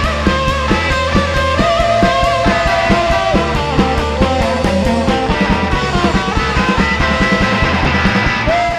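Background rock music: guitar over bass and drums, with no vocals.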